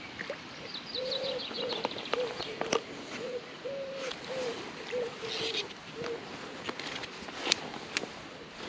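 A pigeon cooing a run of about ten short low notes, with a small songbird's quick, high, falling trill near the start. A few sharp clicks are heard, the loudest near the end.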